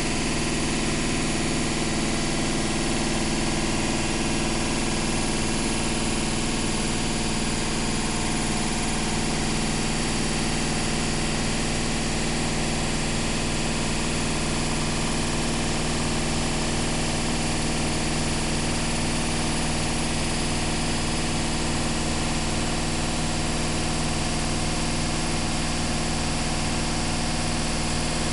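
Washing machine running: a steady hum with several even tones under a broad, even noise, holding level throughout.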